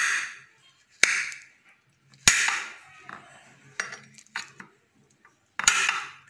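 Kitchen knife cutting through papaya on a plate, the blade striking the plate with a sharp clink: four loud strikes, about a second apart at first, with a few lighter taps between them.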